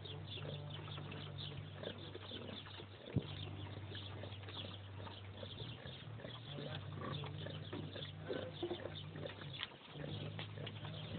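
Pigs and piglets rooting and feeding, with many short, high squeaks and small rooting noises over a steady low hum; one sharp click about three seconds in.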